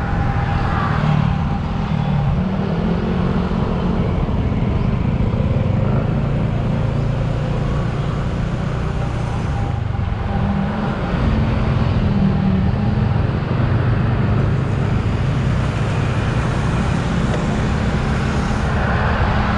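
Motorcycle engine running while riding through city traffic, its pitch rising and falling with the throttle, over steady traffic and road noise.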